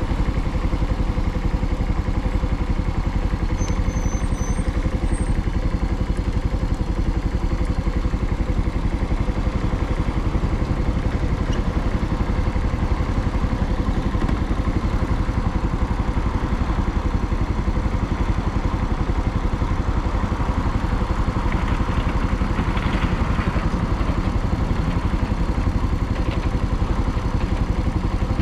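Suzuki TU250X's air-cooled single-cylinder engine running at a steady, even pace, with no revving. A short rise of hiss comes about three-quarters of the way through.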